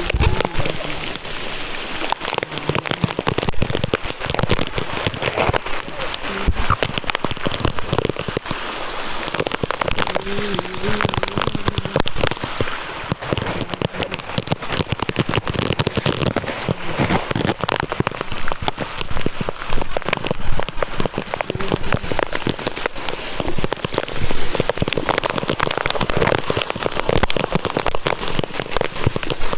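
Heavy rain falling steadily, a dense pattering of drops on hard surfaces with no letup.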